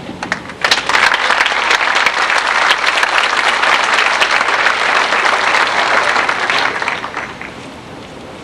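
Audience applauding after a speech: many hands clapping, starting about half a second in and dying away near the end.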